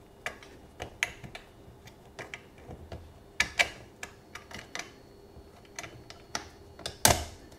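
Irregular small metal clicks and taps as a clevis pin is worked through the garage door opener rail's header bracket by hand, with one louder, brief scrape near the end.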